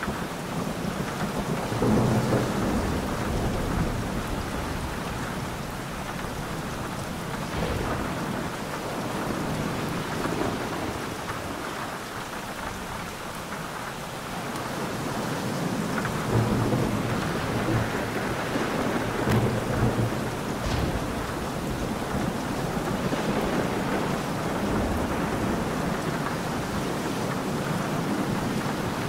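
Thunderstorm: steady heavy rain with rolling thunder. The loudest rumbles swell about two seconds in and again from about sixteen to twenty seconds in.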